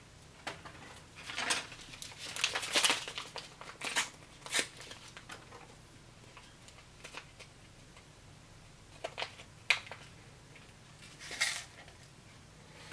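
Foil ration packets crinkling and rustling in scattered short bursts, with quiet gaps between, as small packets of instant coffee are handled and emptied into paper cups.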